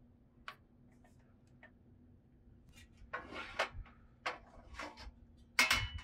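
Hands handling a Hanssem Guibada portable gas grill and its packaging: a sharp click about half a second in, a few faint ticks, then a run of light clicks and clatters from about three seconds in, the loudest knock near the end.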